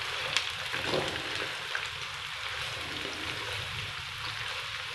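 Sliced bitter gourd (karela) sizzling steadily in hot oil in a karahi while a spatula stirs it, with a few short taps and scrapes of the spatula against the pan in the first two seconds.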